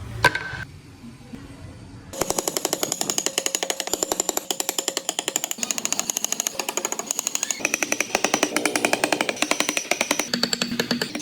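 A power carving tool working into wood with a fast, even, hammering rattle that starts about two seconds in, after a single knock.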